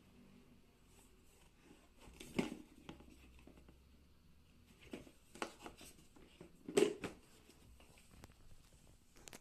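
Handling noise from a hard plastic power-tool carrying case: a few short knocks and scrapes as it is moved and laid down. The loudest come about two and a half and seven seconds in.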